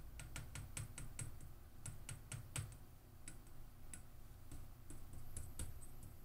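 Fingertip tapping quickly and repeatedly on the glass envelope of a hot 6V6 power tube: a string of faint, sharp clicks in quick runs, a touch test of how hot the tube is running.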